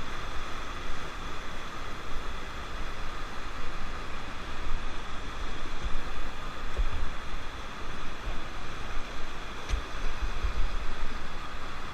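Steady rush of river rapids: an even roar of churning white water with irregular low rumbles underneath.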